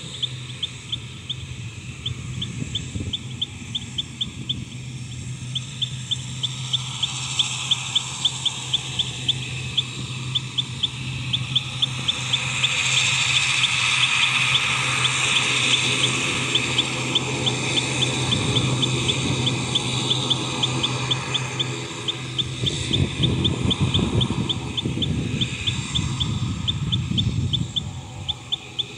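A long, even series of short, high chirps, about four a second, from a small animal, over a steady low hum.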